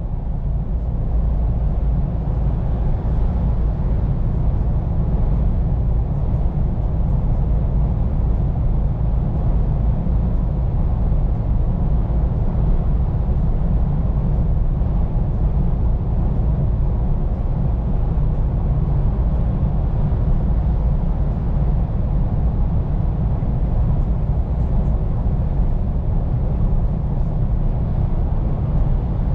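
Scania P410 car carrier truck running, a steady low rumble of engine and drivetrain heard from inside the cab.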